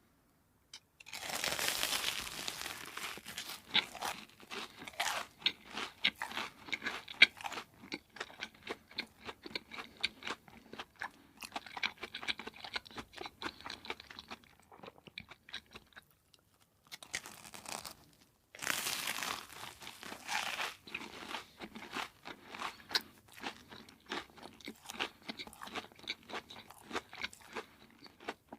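Close-miked eating of crunchy fried food: crisp bites followed by dense, irregular crunching and chewing. There are louder crunching bursts about two seconds in and again about nineteen seconds in, and brief silent breaks in between.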